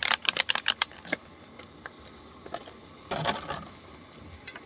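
Thin plastic water bottle crackling as it is squeezed in the hand, a fast run of crackles in the first second and another short burst about three seconds in.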